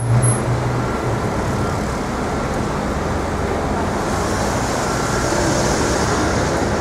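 Steady city street traffic noise from passing vehicles. A low engine hum is heard in the first second, and a hiss builds in the second half.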